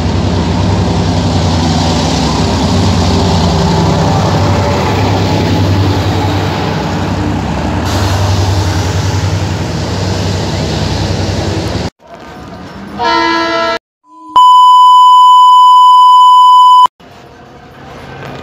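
Loud steady running noise of a diesel passenger train beside the platform, a low engine rumble under a wash of noise, for about twelve seconds until it cuts off abruptly. A brief horn-like tone follows, then a loud, steady, high-pitched beep of about two and a half seconds, then quieter station background.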